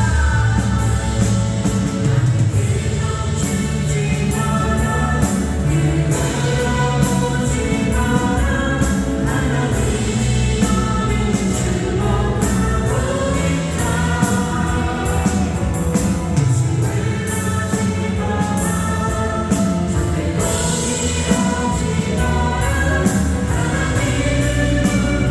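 Contemporary Christian worship song: a group of voices singing a melody together over a full band with a steady beat.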